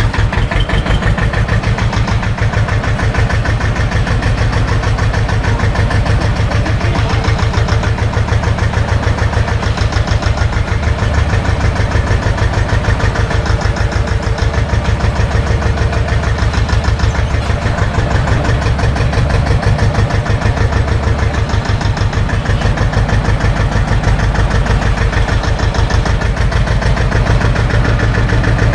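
SAME tractor's diesel engine running steadily at low revs while the tractor moves slowly, heard close up from the driver's seat as a rapid, even stream of exhaust pulses.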